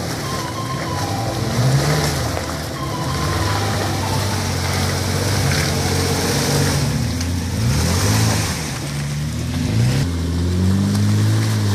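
Toyota FJ Cruiser's engine revving up and down as it crawls over a muddy, rutted trail, its pitch rising and falling every second or two. From about ten seconds in a steadier engine note takes over as a Jeep Wrangler follows.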